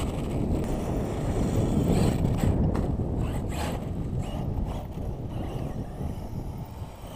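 Wind buffeting the camera's microphone, a steady low rumble with some scattered rustling.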